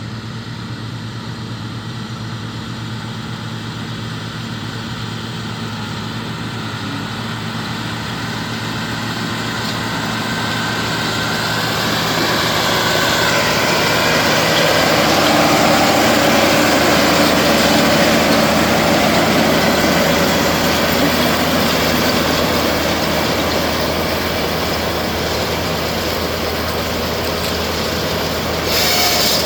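John Deere 4250 tractor's six-cylinder diesel running steadily under load while pulling a John Deere 450M round baler through wheat straw, with the broad noise of the baler working. The sound grows louder over the first half as the rig comes closer, then eases off a little.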